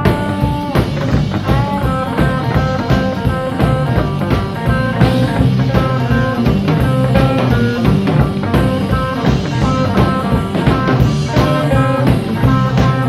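Live blues-rock band playing an instrumental passage: an electric guitar riff of short repeated notes over electric bass and a drum kit keeping a steady beat.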